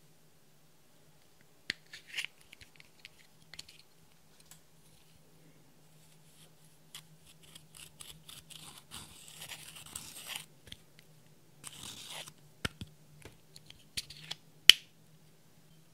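A pen tip scraping and crumbling pressed eyeshadow out of its pan, in two scratchy stretches. Sharp clicks of a clear plastic makeup case being handled come between them, the loudest near the end. A faint steady low hum runs underneath.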